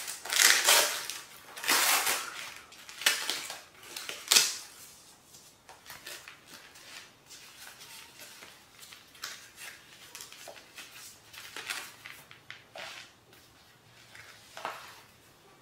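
Packaging and product being handled during an unboxing. Loud crinkling rustles come over the first four seconds or so, then quieter scattered rustles and light clicks.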